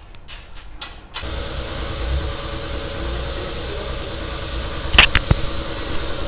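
Background music with a light ticking beat for about the first second, then a steady mechanical hum with hiss and low rumble. Two or three sharp knocks come about five seconds in.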